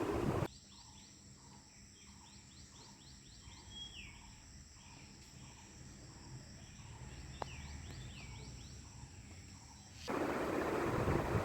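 Outdoor nature ambience: a steady high insect trill with a soft chirp repeating about every half second, and a few short descending bird-like whistles. Loud wind-like noise fills the first half second and returns near the end.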